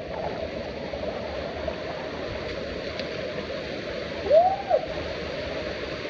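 Waterfall rushing steadily over rock. About four seconds in, a single short tone rises and falls once over the water.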